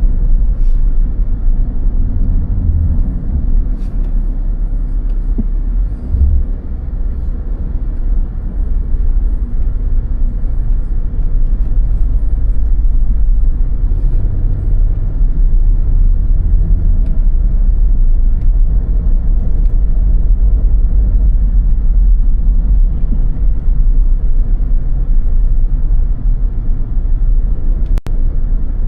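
Steady low rumble of a car driving, its road and engine noise heavy in the low end, with a single sharp click near the end.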